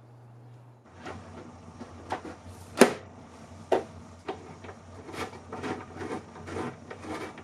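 Irregular clicks and knocks of hard plastic parts being handled: a tail light bulb, its socket and the housing. The sharpest click comes about three seconds in.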